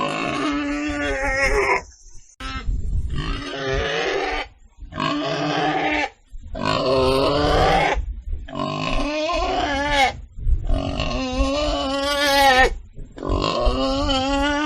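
Pig calling over and over: about seven drawn-out, pitched calls of one to two seconds each, with short pauses between them.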